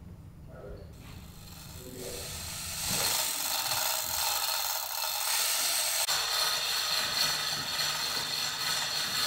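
Woodworking power tool cutting wood: quiet at first, then a steady rushing noise that builds about two seconds in and holds.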